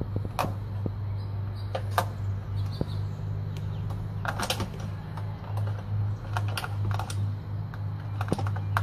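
A cat's claws catching in a mesh screen door as it clings and climbs: irregular clicks and scratches, a quick cluster of them about halfway through, over a steady low hum.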